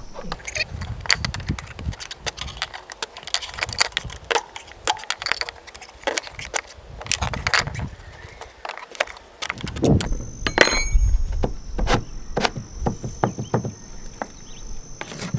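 A stainless steel chain plate being pried up out of its deck pocket with a metal bar levered over wooden blocks: a run of sharp metallic clinks, knocks and scrapes, with a heavier thump about ten seconds in.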